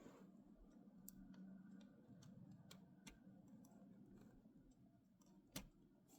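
Faint clicks of plastic Lego pieces being handled and pressed together, with one sharper click about five and a half seconds in.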